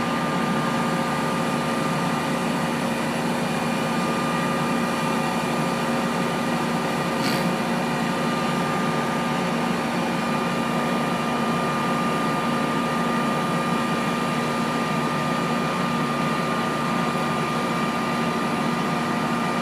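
Aerial ladder truck's engine and hydraulics running steadily as the aerial ladder is lowered and retracted: an even drone with a constant whine. A faint click about seven seconds in.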